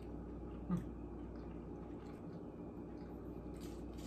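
Quiet room tone with a low steady hum, faint rustling of paper muffin liners being peeled, and one brief low 'mm' from a person, falling in pitch, about a second in.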